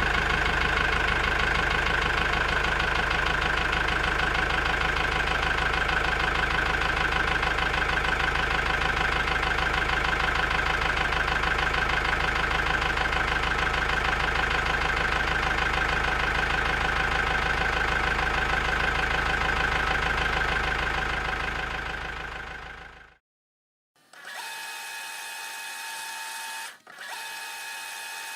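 A steady, engine-like motor drone that fades out about twenty-two seconds in. After a second of silence, a quieter, higher-pitched motor whine follows, briefly breaking off once.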